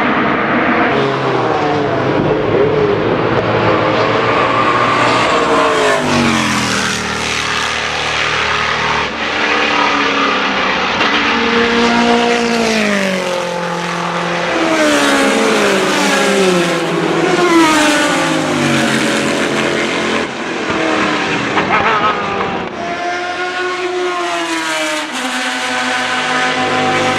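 6.5-litre Chevrolet V8 of a Spice Group C prototype race car at racing speed, its loud engine note repeatedly rising and falling as it revs through the gears and passes.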